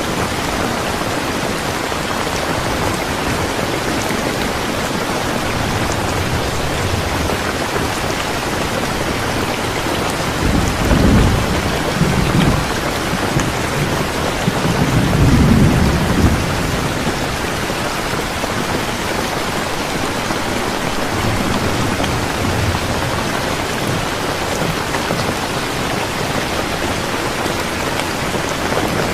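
Steady, heavy rain hiss with two low rumbles of thunder near the middle.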